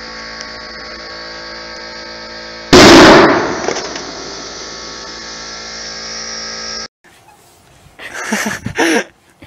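Overinflated basketball bursting: one sudden, very loud bang about three seconds in that rings out over about a second.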